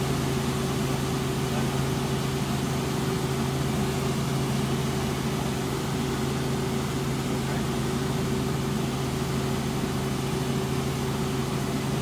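Light helicopter in cruise flight, heard inside the cabin: a steady engine and rotor drone with a constant low hum and a second higher hum tone over even noise.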